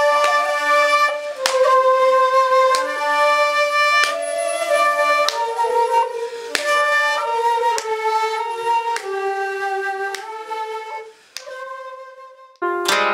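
Two shakuhachi bamboo flutes playing long, breathy held notes that step between pitches, with occasional sharp attacks. Near the end the music thins to one quiet held note, then a koto comes in loudly, plucked.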